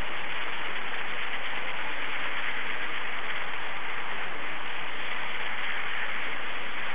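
Steady, even hiss of background noise with no distinct events and no changes.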